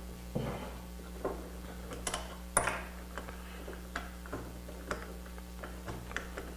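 Irregular light clicks and knocks of metal jig parts being handled as the clamp bracket is taken off a Dowelmax doweling jig, over a steady low hum.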